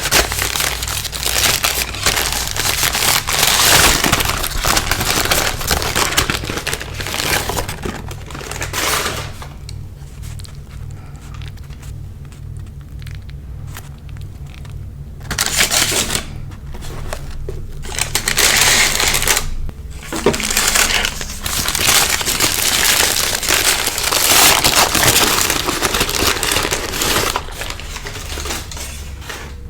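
Close-miked mukbang eating sounds: crunching and crinkling of fried fast food and its paper wrappers, coming in irregular spells with short pauses between.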